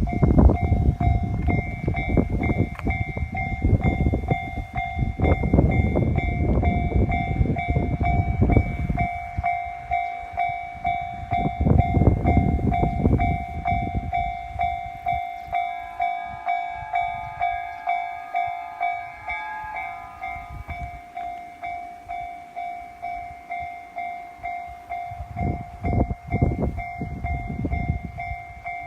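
Japanese level-crossing warning bell ringing in a steady, regular clang a little under two strikes a second while a train runs over the crossing. The train's heavy rumble and wheel clatter dominate the first several seconds, ease off, and a train rumbles past again near the end.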